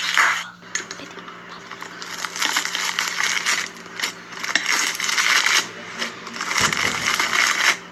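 Slime being squeezed and kneaded by hand, in about four bursts of crackly, squishy noise, each a second or so long.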